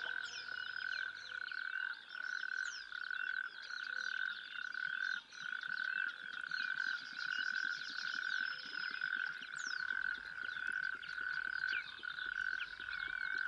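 Chorus of frogs calling: one steady, evenly pulsing call runs through, with many short chirping calls from other frogs over it.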